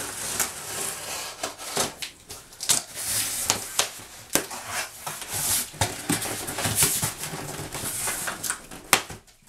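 Box cutter slicing through packing tape and cardboard along the seam of a cardboard box, irregular scratchy rasps broken by sharp clicks and knocks as the box is handled.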